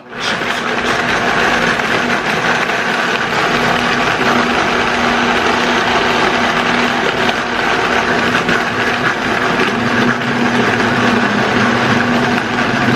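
Vitamix blender motor running steadily, its blades churning a jar packed with green vegetable stalks into a purée. It starts abruptly and keeps a constant whirring hum.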